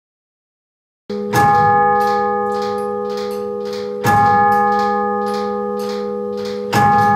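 Clock bell striking three evenly spaced strokes, each about two and a half seconds apart, ringing on and fading slowly into the next: a clock striking the hour. It starts a little after a second in.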